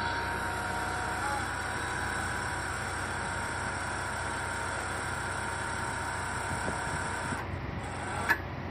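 Crawler-mounted ground-screw driver's engine running steadily with a thin whine on top. The whine cuts off about seven seconds in while the engine keeps running, and there is a short click near the end.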